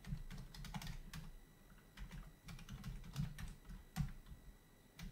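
Typing on the keyboard of a Commodore 64: a run of irregular key clicks as a LOAD command is entered, with one louder keystroke about four seconds in.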